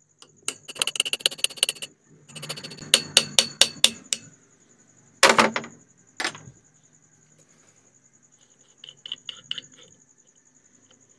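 Metal tapping and clicking as a steel punch is worked in the hole of a sewing machine's stop-motion knob to loosen and unscrew it from the handwheel. Two louder sharp knocks come about a second apart midway, and a few light clicks come near the end.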